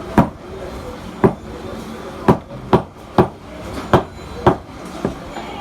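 A butcher chopping through a beef leg: about eight sharp blows, irregularly spaced at roughly one or two a second.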